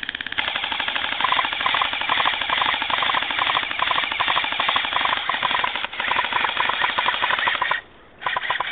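Airsoft rifles firing full-auto covering fire: a fast, loud rattle of shots that runs almost unbroken for about eight seconds with one short break, stops, then another short burst near the end.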